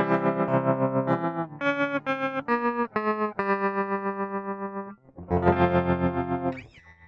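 Electric guitar played through effects pedals: sustained notes and chords changing every half second or so. The sound drops out briefly about five seconds in, and a final chord ends with a quick bend up and down in pitch, then fades.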